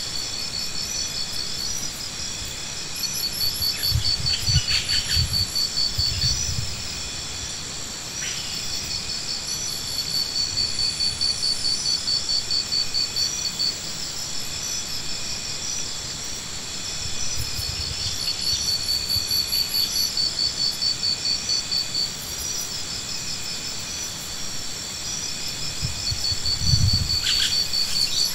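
Insects trilling in fast high-pitched pulse trains that start and stop every few seconds over a steady high hiss, with a few dull low thumps.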